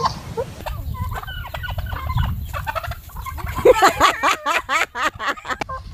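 Turkey gobbling in two quick rattling runs, the second louder.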